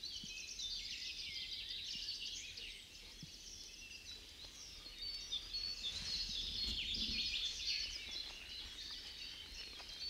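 Several songbirds singing at once, a dense chorus of overlapping chirps and warbles.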